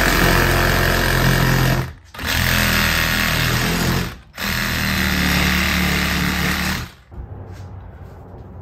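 Milwaukee cordless reciprocating saw cutting an old rubber sway bar bushing out of its bracket held in a vise. Three runs of about two seconds each, with short breaks between, stopping about seven seconds in.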